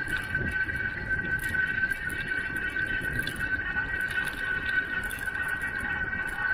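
Riding a bicycle at speed on a paved path: wind buffeting the microphone and tyre noise, with a steady high whine over it.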